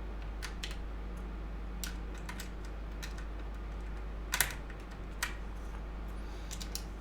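Scattered key clicks on an Ajazz K870T mechanical keyboard with Ajazz brown switches, a dozen or so separate presses rather than steady typing, with two louder clicks about halfway through.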